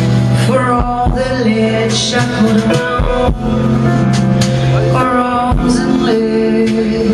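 Live band playing a slow song: held guitar and keyboard-like tones over a slow kick-drum beat, with a woman singing into a microphone.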